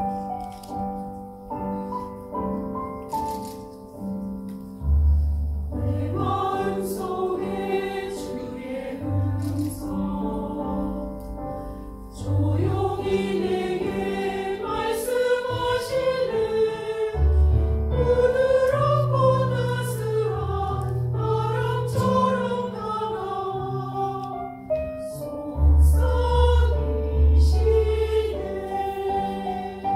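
Mixed church choir singing a Korean-language sacred anthem with piano accompaniment; the piano plays alone at first and the choir comes in about six seconds in.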